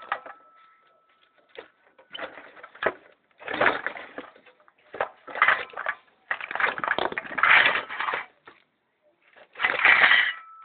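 Bursts of crunching and scraping from a CRT television being pulled apart by hand, with short quiet gaps between them.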